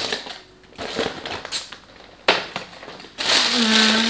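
Clear plastic tote bag crinkling and rustling as it is handled and folded, in irregular crackles with a sharp burst about two seconds in and a longer, louder rustle near the end.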